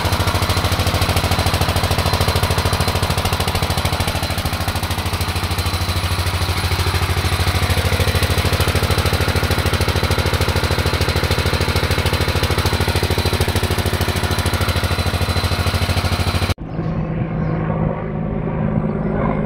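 Stationary engine of a generator set running steadily under load, with a fast, even knocking beat. About 16½ seconds in it cuts off suddenly, giving way to a quieter steady hum of a helicopter passing overhead.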